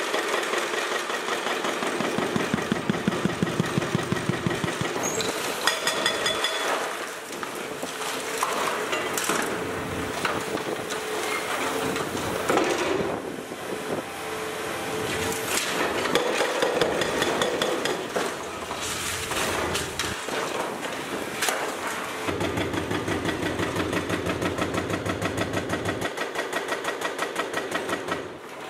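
Heavy hydraulic breaker hammer (a 4000 kg unit on an excavator) pounding reinforced concrete, in long runs of rapid, even blows with short pauses between them.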